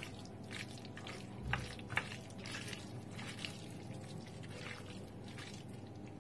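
Soft, wet squishing of a gloved hand mixing marinated pork and black fungus (wood ear mushroom) on a plate, with a light knock or two against the plate about one and a half to two seconds in.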